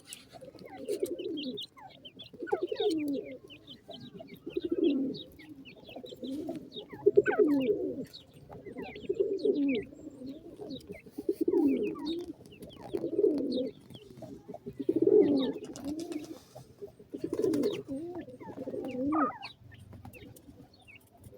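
A bird giving low, burbling coos in bouts of about a second, roughly every two seconds, with faint high chirps in between.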